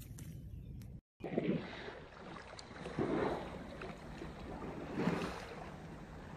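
Water sloshing and splashing in a pool as an elephant shifts about in it, swelling three times about two seconds apart.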